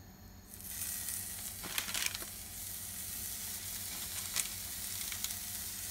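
Raw beef-and-carrot meatballs sizzling in a hot frying pan as they are set in one by one. The sizzle starts about half a second in and holds steady, with a few sharp pops and crackles.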